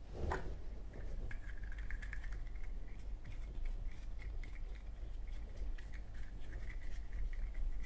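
Cotton swab scrubbing a Zippo lighter's metal insert: light, irregular scratching and small clicks, over a steady low hum.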